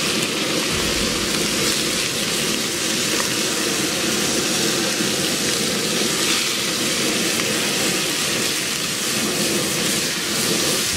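Strips of beef sizzling as they sear in pork lard in a very hot wok, stirred with a wooden spoon, over the steady rush of a semi-industrial gas burner.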